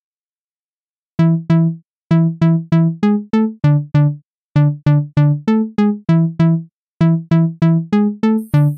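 Music: a simple electronic melody of short, evenly spaced notes, about three a second, beginning after about a second of silence and pausing briefly twice. Near the end, high sweeping tones begin over the notes.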